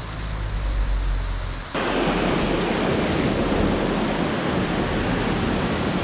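Rushing water of a rainforest creek and waterfall in high flow, a steady noisy rush. Under two seconds in it changes abruptly from a lower rumble to a louder, fuller rush.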